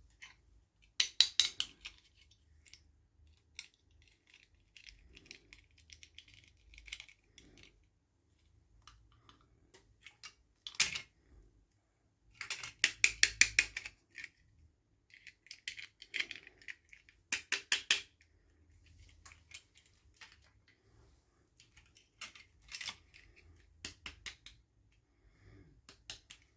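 Plastic toy packaging being handled and opened by hand: bursts of rapid clicking and crinkling with short pauses between.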